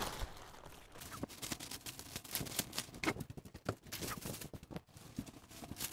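Thin plastic mattress wrapping rustling and crinkling, with many irregular small crackles, as the vacuum-packed mattress is handled and expands inside it.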